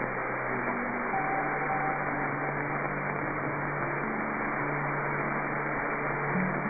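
Running helicopter heard through the pilot's headset intercom: a steady, muffled hiss with a low hum underneath.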